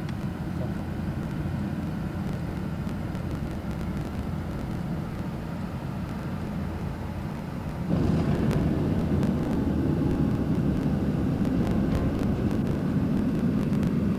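Škoda Felicia on the road: steady engine and road rumble, which gets louder about eight seconds in.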